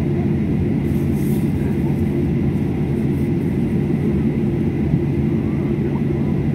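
Steady cabin noise of an airliner taxiing, heard from inside: a low engine rumble with a steady hum.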